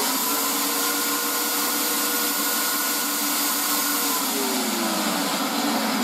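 VEVOR portable electric hoist/winch running forward, its motor and gears whining steadily as it reels in the wire rope. The whine's pitch sags between about four and five seconds in as the motor slows.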